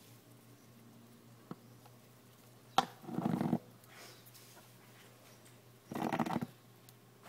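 Young bat in a plastic tub making two short raspy bursts about three seconds apart, the first just after a sharp click.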